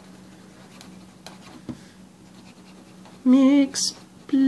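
Faint scratching of a fine-tip marker on paper as a name is hand-lettered, then a woman's voice humming a few wavering, sing-song notes near the end.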